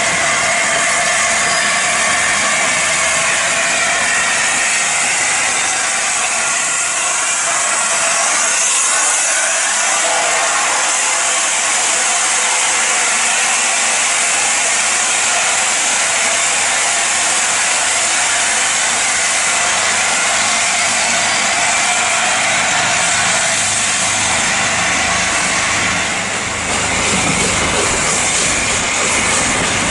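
Railway train noise: a steady, loud hiss and rush with a faint wavering whine, and a short dip in level about 26 seconds in.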